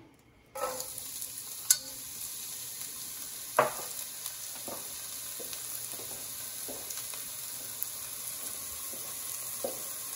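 Chopped onion sautéing in hot oil in a non-stick pan: a steady sizzle that starts suddenly about half a second in, with a few sharp knocks, the loudest two near the start.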